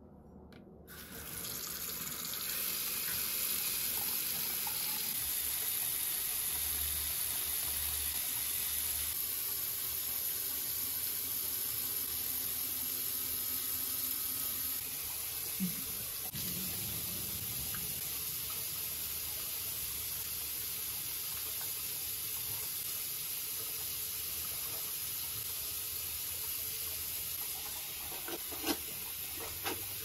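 Bathroom sink faucet running steadily, water pouring into the basin, turned on about a second in. There is a brief knock about halfway through and another near the end.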